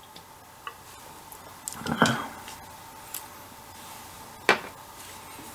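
A man drinking beer from a glass bottle: a short swallowing, breathy sound about two seconds in, then a sharp knock about four and a half seconds in as the glass bottle is set down on a hard surface.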